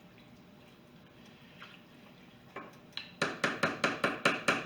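Spoon stirring soup broth in a pressure cooker's pot: quiet liquid movement at first, then a quick run of knocks against the pot, about five a second, from about three seconds in.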